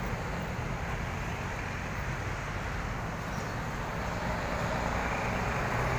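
Steady road traffic noise: the continuous rush of vehicles on a busy city road.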